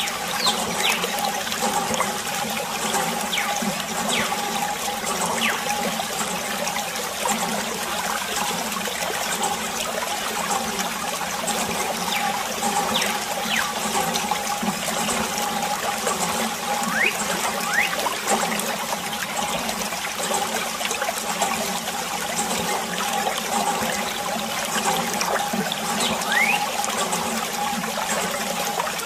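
Water trickling and splashing from a thin plastic tube onto mud-covered plastic toy cars, washing off the mud, with a steady hum underneath.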